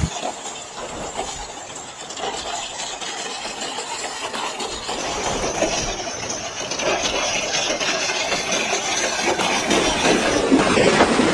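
Heavy rain and floodwater rushing through a street, a steady wash of water noise that grows louder toward the end.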